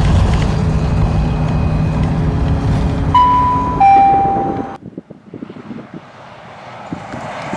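Bus engine running, heard from inside the bus, with a two-note falling chime about three seconds in, the bus's stop bell. The sound cuts off suddenly just under five seconds in, and the rush of an approaching train then builds up.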